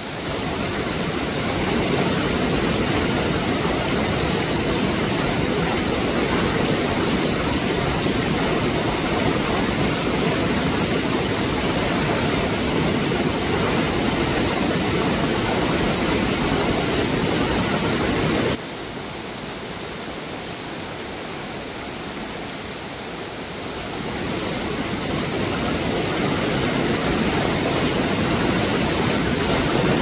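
Mountain stream rushing over rocks, a steady noise of running water. The sound drops suddenly about two-thirds of the way in, then slowly swells again near the end.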